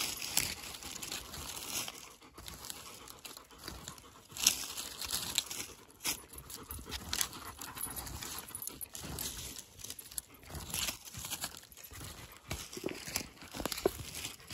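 A small hand rake's metal tines scratching through forest litter and soil in short, irregular strokes, crackling dry fir needles and twigs as the ground is raked back to uncover a buried truffle.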